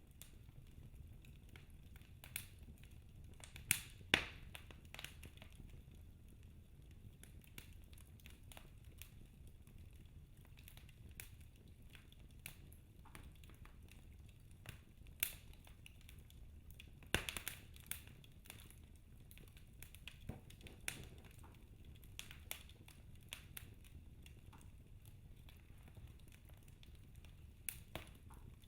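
Wood fire burning in a fireplace, crackling faintly with scattered sharp pops over a low steady rumble, and a few louder pops about four seconds in and again around seventeen seconds.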